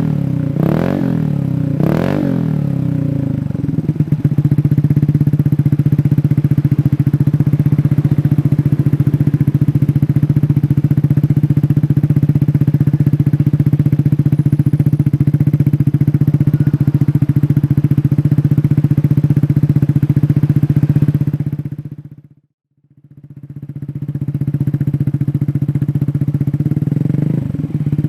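Motorcycle engine through a Shijiro aftermarket racing exhaust: a few quick throttle blips, then a steady idle. About 22 seconds in the sound fades out and back in to another exhaust idling, with revving starting again near the end.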